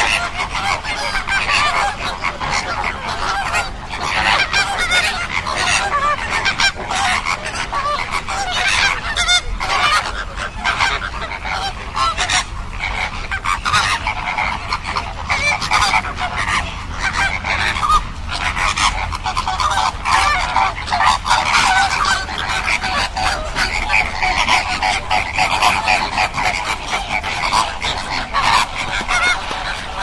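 A flock of flamingos honking and chattering, many goose-like calls overlapping without a pause.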